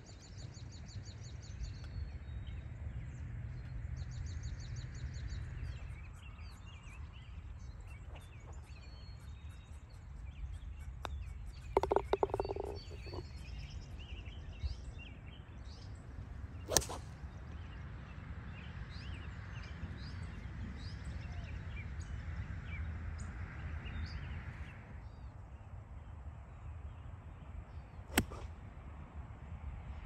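Outdoor ambience of birds singing over a low steady rumble, with a short clatter about twelve seconds in and two sharp clicks later on.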